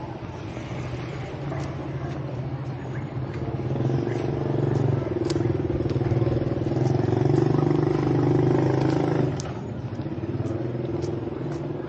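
Motorbike engine running with a steady low hum, growing louder partway through and dropping off suddenly about nine seconds in.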